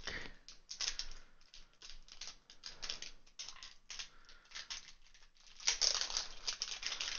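Plastic shrink-wrap being picked at with fingers and peeled off a plastic Poké Ball container: scattered small clicks and crackles, turning to steadier crinkling near the end.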